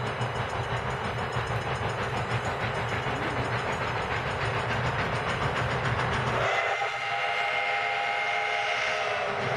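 Steam whistle of ex-Canadian National 0-6-0 steam locomotive #7470 sounding one long, steady blast of several notes at once. It starts about two-thirds of the way in and briefly dips near the end. Before it there is a steady rushing noise with a low rumble.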